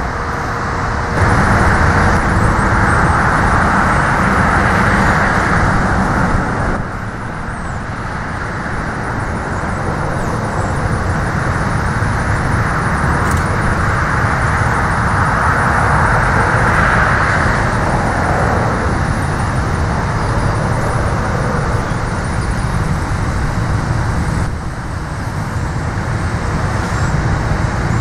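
Steady road-traffic noise with a low rumble, swelling louder twice as vehicles pass.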